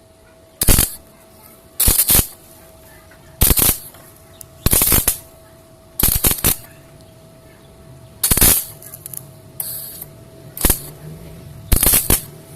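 Arc welder striking a series of short tack welds on steel: brief crackling bursts, about eight of them, roughly one every second or so, over a faint steady tone.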